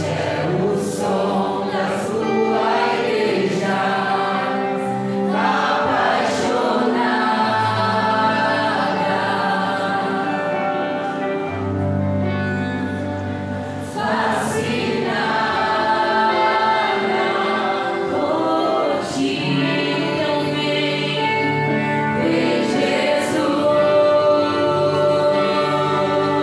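Worship music: voices singing over sustained keyboard-like chords, with occasional cymbal strokes.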